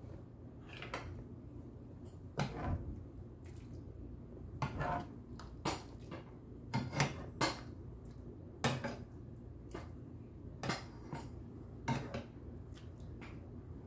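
Utensil clinking against cookware: a dozen or so irregular clinks and knocks, some ringing briefly.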